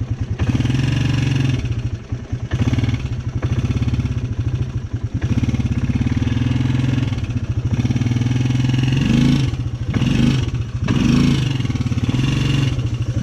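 Polaris Sportsman 300 ATV's single-cylinder four-stroke engine running while the quad is ridden, the throttle opened and eased off so the note rises in pitch several times in the second half.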